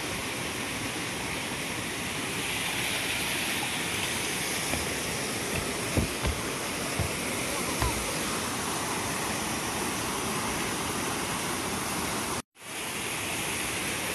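Steady rushing of water flowing through concrete fish-pond channels and pouring from inlet pipes, with a few soft low knocks around the middle. The sound cuts out for an instant near the end.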